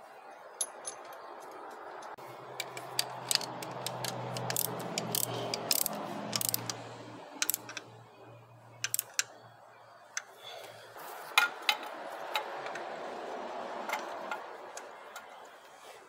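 Irregular metallic clicks and clinks of tools and fittings as a compression tester's dummy injector and gauge hose are fitted into an injector bore of a diesel cylinder head. A low steady hum runs under the clicks until about two-thirds of the way through.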